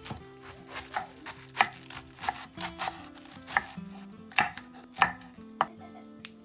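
Knife chopping vegetables on a cutting board: about ten sharp, irregularly spaced strokes, with soft background music.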